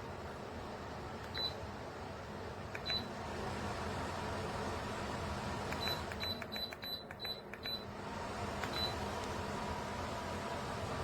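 Ezify tower fan running with a steady airflow hiss, its control panel giving about ten short, high beeps as its settings are changed: single beeps early on, then a quick run of six or so in the middle, and one more near the end.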